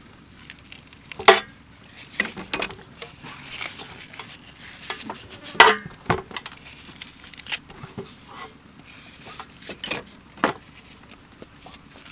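Metal spoons and knives scraping watermelon flesh off the rind, with irregular sharp clinks of metal against a stainless steel tray; the loudest clinks come about a second in, midway, and near the end.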